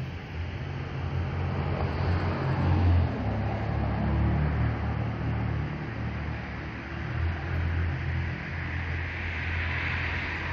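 Road traffic: a steady low rumble of passing cars with tyre hiss, swelling about three seconds in and again toward the end.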